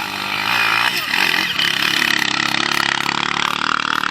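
Dirt bike engine revving, rising in pitch early on, then running loud and close before starting to fade near the end.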